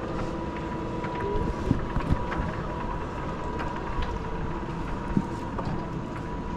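Alpine coaster sled running along its rail track, heard from the rider's seat: a steady hum with a constant whine and scattered clicks and rattles from the wheels on the rails.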